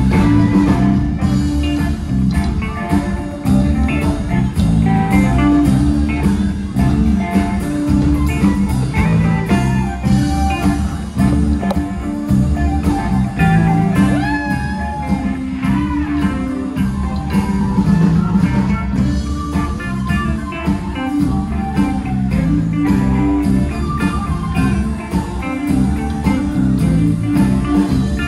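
Band playing blues-style music led by guitar, over a steady beat.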